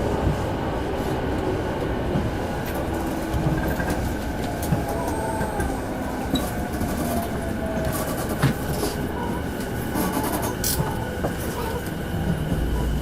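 JR East E233-series commuter train heard from inside the passenger car: steady running noise with sharp clicks from the wheels, and a faint whine that falls in pitch as the train slows. A low steady hum comes in near the end.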